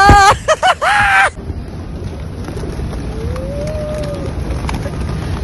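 A person shrieking and squealing loudly in short wavering bursts for about the first second and a half, as feral pigeons land on an outstretched arm. Then a steady rushing flutter of many pigeons' wings flapping around.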